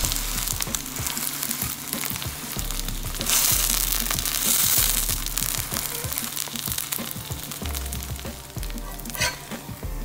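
Kimchi pancake sizzling in hot oil in a cast-iron skillet, with a slotted metal spatula working it against the pan. The sizzle swells louder for a couple of seconds about three seconds in, and there is a sharp clink near the end.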